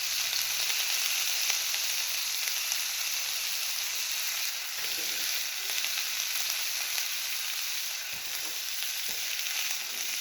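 Stuffed bell peppers sizzling on a hot steel flat-top griddle: a steady frying hiss, with a few faint soft knocks partway through.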